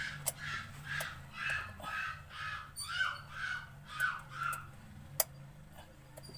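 A bird calling over and over, about two calls a second, stopping about four and a half seconds in, over a steady low hum; a single sharp click about five seconds in.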